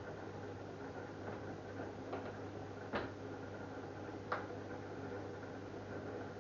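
LG F1089ND direct-drive front-loading washing machine running a wash-cycle program, with a steady hum and a few light clicks and knocks from the drum, the sharpest about three seconds in and again a second later.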